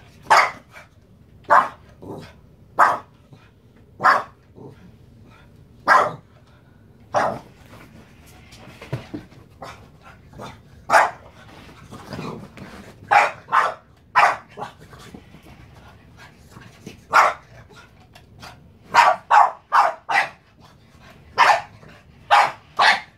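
A small dog barking over and over at a remote-control toy car: about twenty sharp, loud barks roughly a second apart, with a quicker run of barks near the end.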